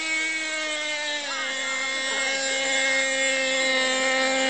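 Radio-controlled buggy's motor running at a steady high buzz, its pitch dropping a little about a second in and then holding.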